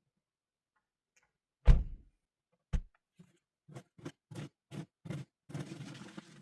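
One heavy knock with a low thud, a second knock a second later, then a run of lighter clicks and knocks a few per second, ending in a short rustling hiss.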